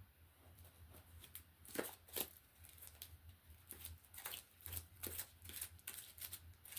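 A deck of reading cards being shuffled and handled: a run of soft, irregular flicks and clicks, with a low steady hum underneath.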